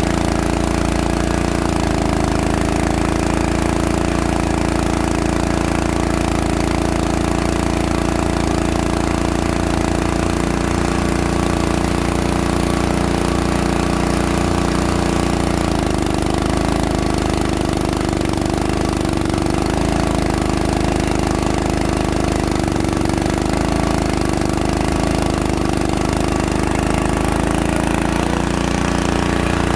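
Small engine of a core drilling machine running steadily, its note shifting slightly about halfway through.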